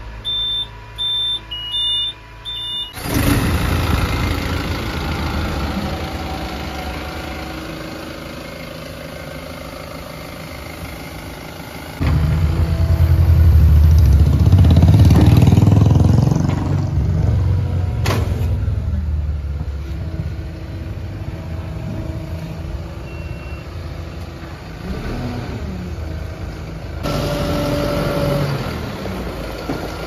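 Tata Hitachi backhoe loader starting up: a series of short high electronic beeps from the instrument cluster with the ignition on, then the diesel engine starts about three seconds in and runs. Midway the engine gets louder for several seconds, with one sharp click a little after.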